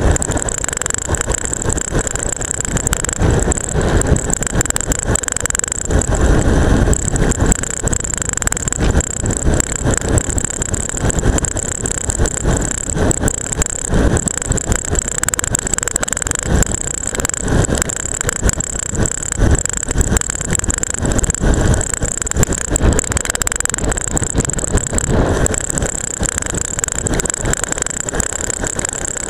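Camera strapped to a bicycle seatpost rattling constantly on a fast road descent, with many irregular knocks over a steady rush of wind and tyre noise. A thin, steady high whine sits above it.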